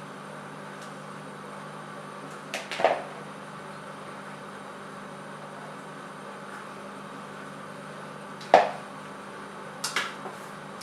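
Steady kitchen hum with a few short knocks and clinks of kitchenware being handled: a pair about three seconds in, the loudest about two seconds before the end, then a quick cluster right after it.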